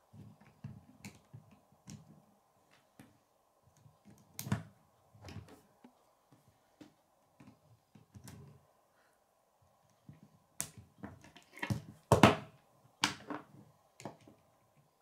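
Plastic K'nex parts clicking and snapping as wheels are pushed onto the rods, with scattered knocks of the plastic model against a wooden table. The loudest run of knocks comes about twelve seconds in.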